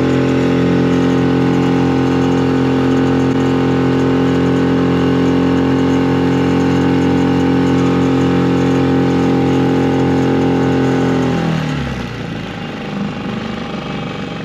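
Small boat's outboard motor running at a steady speed, then throttled back about eleven seconds in, its pitch falling as the boat slows.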